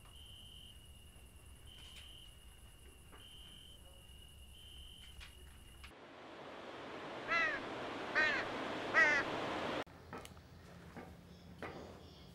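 Night insects: a high steady buzz with a chirp repeating about every second and a half. About six seconds in this gives way to a steady rushing hiss over which a crow caws three times, the loudest sound; after it stops, a few faint knocks and clicks.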